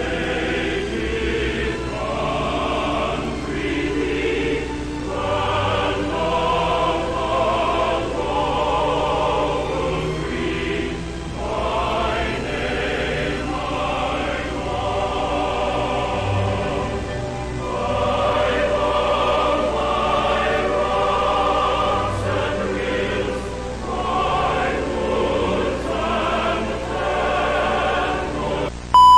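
A choir singing slow, sustained chords. A loud steady electronic tone cuts in right at the very end.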